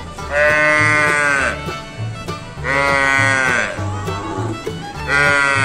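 A calf bawling three times, each high-pitched moo lasting about a second and the last one cut off at the end. Background music with a steady low beat runs underneath.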